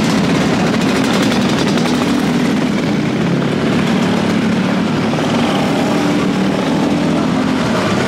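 Big motorcycle engines running steadily.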